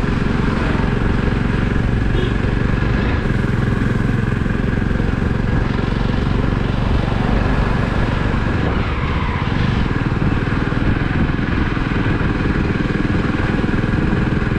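Motorcycle engine running steadily under way.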